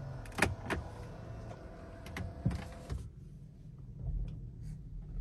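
Quiet Tesla Model 3 cabin while steering: a few light clicks and a faint steady hum, then a low road rumble from about four seconds in. There is no squeak from the front suspension, whose worn upper control arms have just been replaced.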